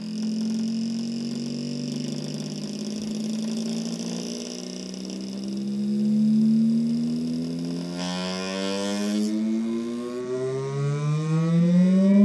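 Pioneer CK-3 boombox playing a cassette through its speaker: a buzzy pitched tone that holds steady for about six seconds, then glides upward in pitch, climbing faster near the end.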